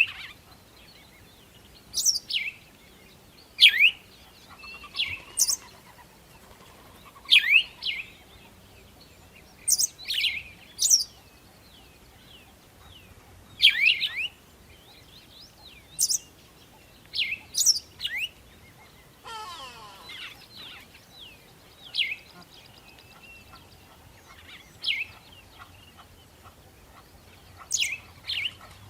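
A bird calling with sharp, high notes that sweep steeply down in pitch, one every second or two, sometimes in quick pairs.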